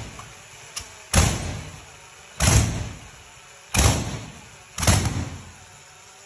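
Tank engine on a test stand coughing and backfiring as it tries to start for the first time: four loud, sudden bangs about a second and a quarter apart, each dying away quickly.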